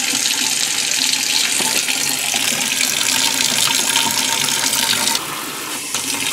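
Kohler kitchen faucet running a steady stream of water into a stainless steel sink, splashing onto the drain strainer. The splashing gets quieter and duller about five seconds in.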